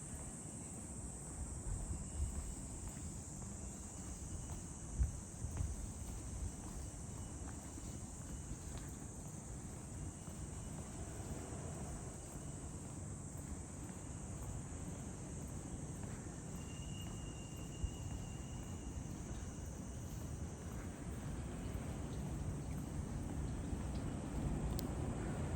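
Steady, high-pitched insect chorus droning continuously, with a faint low rumble underneath that grows a little louder near the end.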